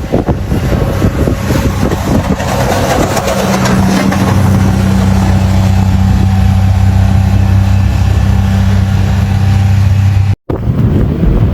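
A vehicle engine running steadily with a low, even hum, over wind rushing on the microphone. The sound drops out for an instant near the end, then wind noise returns.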